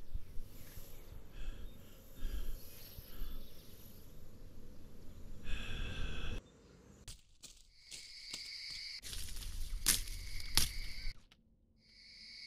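Film soundtrack effects in a 3D headphone mix: low rumble and noise, a few clicks and two sharp impacts about ten seconds in, then a steady high chirring of insects that fades in near the end.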